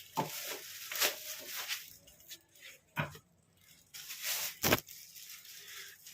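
Rustling and handling of a monitor's packaging, with two sharp knocks, one about three seconds in and one near the end.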